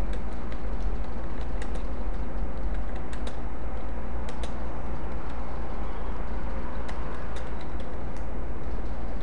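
Computer keyboard keys clicking at an irregular typing pace, over a loud steady low hum and hiss.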